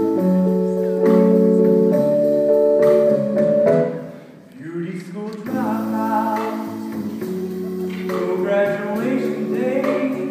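Live stage-musical number: a chorus singing held harmonies over a pit band, with a brief drop about four seconds in before the singing picks up again.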